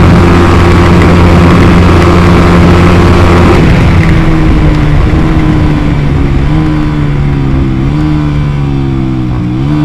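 Honda CBR motorcycle engine breathing through an RX8 aftermarket exhaust, held at steady high revs at speed. About three and a half seconds in the note drops and winds down, with a couple of short rises in pitch near the end.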